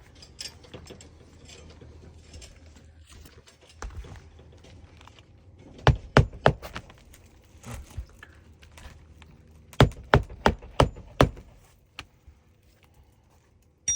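Hammer driving roofing nails into a 3-tab asphalt shingle: a quick run of about four blows, then another run of five or six blows about four seconds later.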